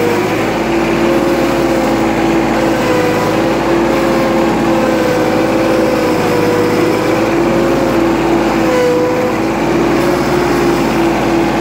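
John Deere 4110 compact tractor's hydrostatic transmission whining over its running diesel engine while the tractor is driven: one steady tone with a higher second tone that wavers a little in pitch. It is the cold-fluid whine, normal for a hydrostatic transmission when the fluid is cold.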